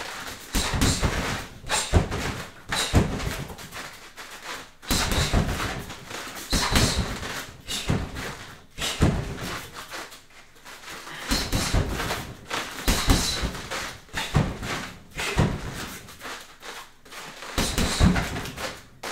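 Boxing gloves and knees striking a free-standing heavy bag in quick combinations, with thuds coming in clusters every couple of seconds and bare feet stepping on foam mats in between.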